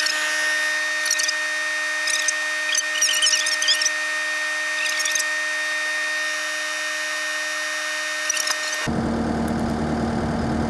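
A steady machine whine made of several held tones, with short high chirps scattered over it. About nine seconds in it cuts to a Case skid-steer loader's engine idling with a low steady rumble.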